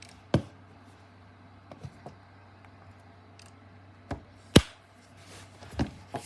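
Sharp plastic-and-metal knocks and clicks as an iPad is handled and fitted onto a magnetic keyboard case: a handful of separate taps, the loudest about four and a half seconds in.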